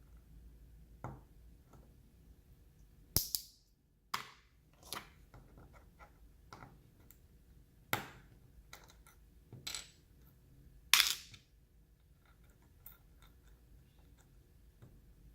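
Sharp plastic clicks and snaps of Halo True mechanical keyboard switches being pried open and handled in a Kailh MX switch opener. Small clicks are scattered throughout, with a few much louder snaps, the loudest about 11 seconds in.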